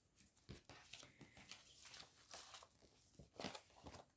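Faint, irregular crinkling and rustling of paper being handled: a printed cross-stitch chart being unfolded.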